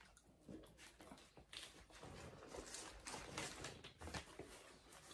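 Faint eating sounds: chewing, with irregular small clicks and rustles of forks working through battered fish and chips on paper wrapping.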